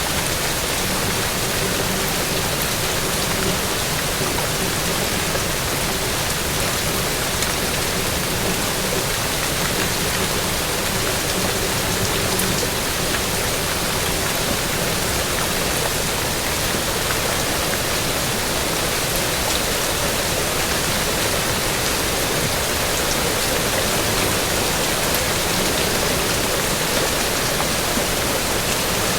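Steady rain falling, an even unbroken hiss with no change in level.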